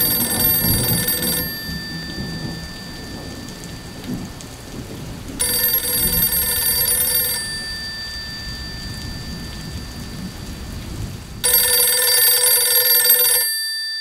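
Rotary desk telephone's bell ringing three times, each ring about two seconds long, over steady rain with a low thunder rumble. The rain stops about twelve seconds in, and the last ring sounds in a quiet room.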